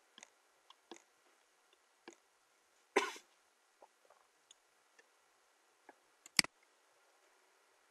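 Scattered computer mouse clicks and small desk noises, with a short puff of noise about three seconds in and the sharpest click a little after six seconds.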